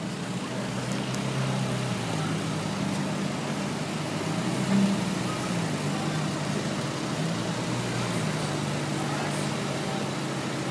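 Ferrari 458 Italia's V8 running steadily at low revs as the car crawls along, its note wavering a little, with a brief swell about halfway through.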